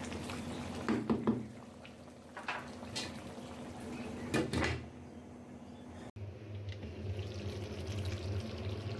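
Spoon scraping and clinking as beef is stirred in a pot of its own juices, in a few short strokes; a low steady hum takes over in the second half.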